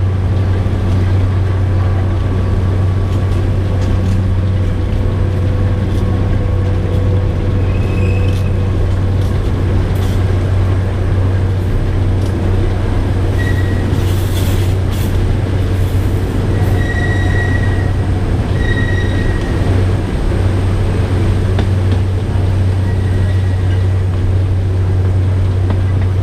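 Narrow-gauge forest railway train under way behind a DL-41 diesel locomotive: a steady low drone of engine and running gear. Short, high wheel squeals come a few times in the second half, with a few clicks from the rails.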